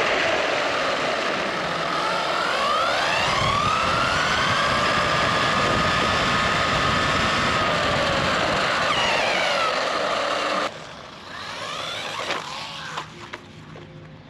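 Brushless electric motor of an MJX Hyper Go 14209 1/14 RC truck whining, rising and falling in pitch with the throttle, over loud tyre and wind noise as the truck speeds across asphalt, heard up close from on board. About three-quarters of the way in the sound drops suddenly to a much quieter stretch with scattered small clicks.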